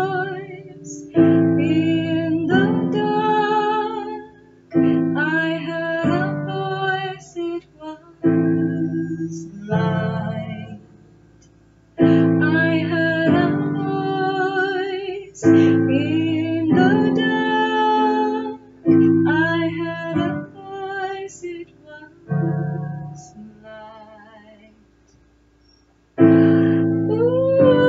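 A woman singing with a wavering vibrato while accompanying herself on a digital piano. She sings in phrases, with short pauses where the piano chords die away, notably about 11 seconds in and again near the end.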